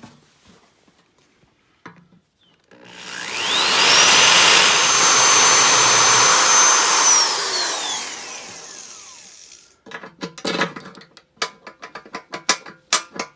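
An electric drill spins up with a rising whine, runs at a steady high speed for a few seconds while a bolt hole in the metal is enlarged for a larger bolt, then winds down with a falling whine. After it stops, a quick series of sharp metallic clicks and clinks.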